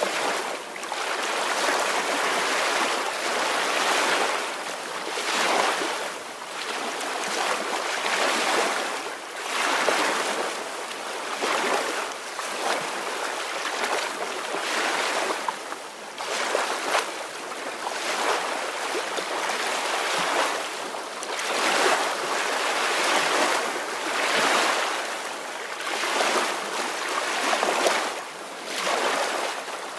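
Small ocean waves washing ashore, a continuous hiss of surf that swells and eases every second or two.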